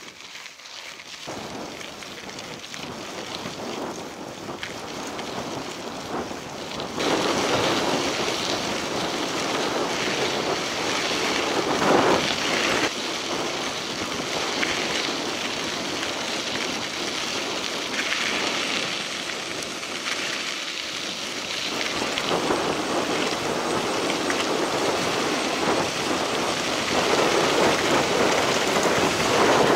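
Wind buffeting the microphone of a camera on a moving mountain bike, over the crunch of tyres rolling on a gravel dirt road. It grows louder, with a step up about seven seconds in.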